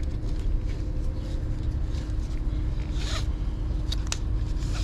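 A packing strap and packaging being pulled off the front of the bike: a few short rasping rustles over a steady low rumble.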